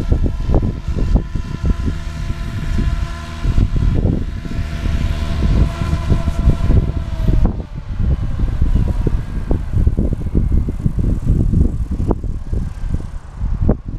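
SAB Goblin 570 electric RC helicopter's rotor and motor whine, which drops in pitch and fades about seven seconds in. Wind buffets the microphone throughout and is the loudest sound.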